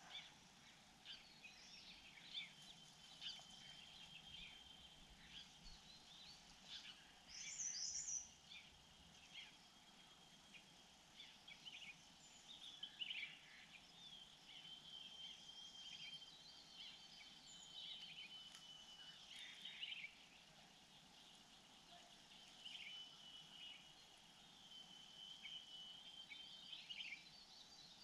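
Faint small-bird chirps and calls scattered throughout, with a long, steady high trill recurring several times.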